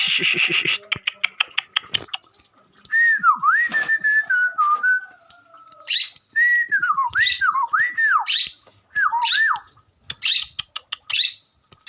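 Long-tailed shrike (cendet) singing, with mimicked song of other birds woven in. It gives a run of whistled notes that swoop down and back up, mixed with harsh chattering notes and clicks.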